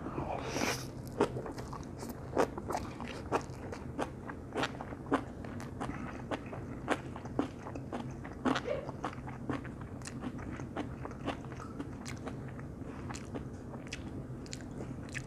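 A man eating a mouthful of stir-fried instant noodles with stir-fried kimchi: a slurp as the noodles go in during the first second, then steady chewing with frequent short wet clicks and smacks.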